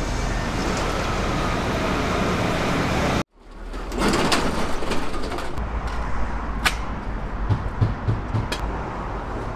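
Busy market-street ambience: a steady low rumble and hubbub that cuts off abruptly about three seconds in, then starts again with scattered clinks and knocks.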